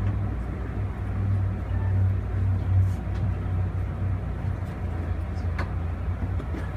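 Steady low rumble of an Amfleet passenger coach running along the track, heard from inside the car, with a few faint clicks.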